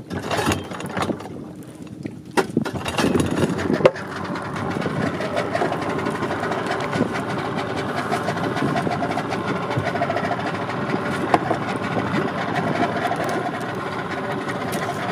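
Knocks and wind on the microphone, then, about four seconds in, a boat's outboard motor comes in and runs steadily.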